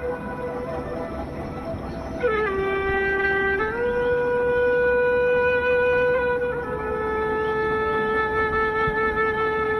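Background music: a wind instrument holds long, steady notes. It steps down to a lower note about two seconds in, comes back up a second or so later, and settles slightly lower past the middle.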